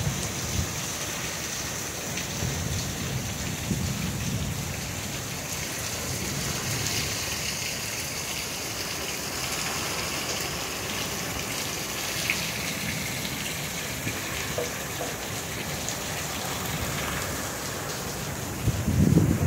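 Steady heavy rain from an Arizona monsoon storm, pouring down, with low rumbles of thunder now and then. A louder low rumble builds near the end.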